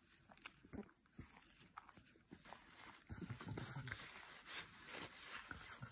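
Faint wet licking and smacking of a blue French bulldog puppy on an ice cube: a string of soft, irregular clicks, with a brief low sound about three seconds in.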